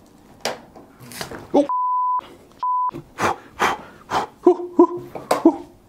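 Censor bleep: two steady beeps of a single high tone, the second shorter, with all other sound cut out around them as if covering swearing. After that comes a run of short, sharp pained grunts and yelps from a man.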